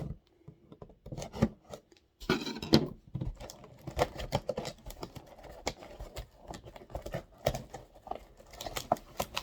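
A retail trading-card box being unwrapped and opened by hand: irregular tearing, crinkling, scraping and clicking of wrap and cardboard, starting about two seconds in after a short quiet spell.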